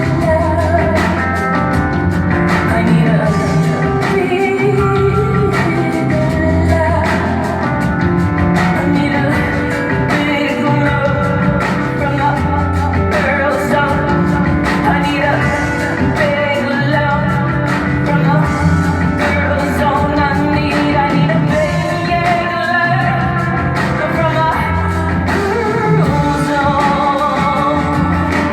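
Live rock song: a woman singing over a band with a steady, repeating bass line.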